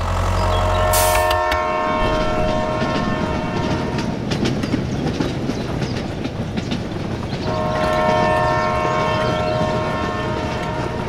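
Toy steam locomotive running along its track with a steady rattle of wheels and motor, sounding a horn of several tones held together about a second in and again, for longer, near the end.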